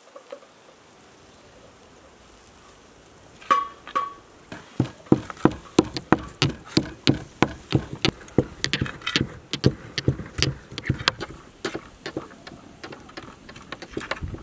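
Stone pestle knocking and grinding in a small stone mortar: a steady run of sharp knocks, about three or four a second, starting about five seconds in.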